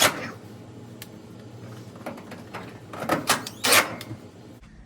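Sharp knocks and clunks from a metal clothes dryer being handled, one at the start and a quick cluster of several about three seconds in, over a faint steady hum.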